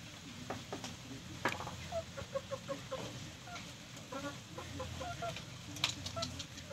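Chickens clucking in many short, repeated calls, with a sharp click about a second and a half in and another near the end.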